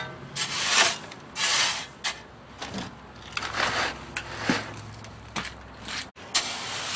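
Shovel scraping and pushing gravel across the steel base of a raised garden bed, in several separate gritty strokes about a second apart.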